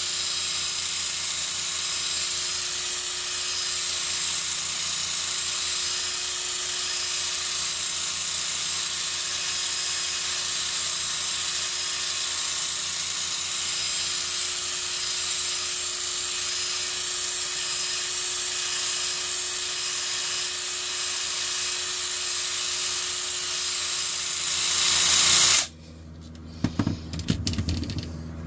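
Hitachi cordless drill spinning a polishing pad against a plastic pickguard: a steady high motor whine with a buffing hiss, buffing the pickguard to a shine. It gets louder for a moment about 25 seconds in, then stops suddenly, and a few knocks follow as the drill is set down.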